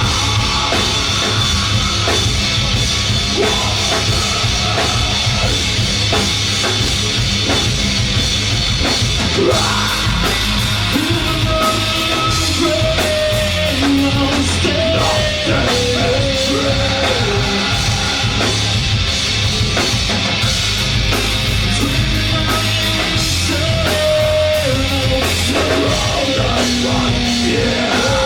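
Loud live rock music from a full band: drum kit and distorted guitars playing steadily, with a wavering lead line from about ten seconds in.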